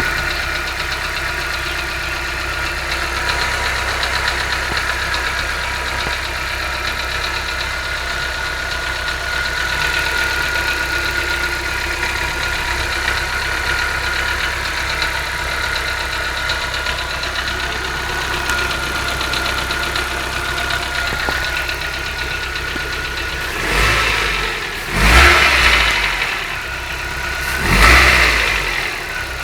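2003 Chevrolet Celta VHC engine idling steadily with an abnormal running noise, then revved up briefly three times near the end. The owner believes the noise comes from the pistons.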